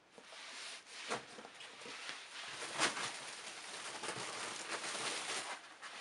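Rustling and soft knocks as a pair of sneakers is handled and laid down on a heap of used shoes, with a sharper knock about three seconds in.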